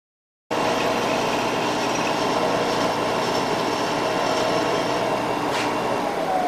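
Machine tool spindle motor running steadily with a constant whine. Near the end there is a click and the pitch begins to fall as the spindle starts to spin down.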